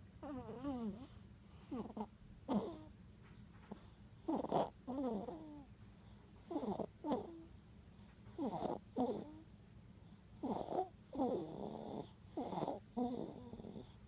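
A three-month-old baby's noisy breathing: short wheezy, squeaky breaths in and out, mostly in pairs about every two seconds, each with a wavering whistle-like tone. This is the wheeze and stridor of tracheomalacia, a floppy windpipe that narrows as she breathes.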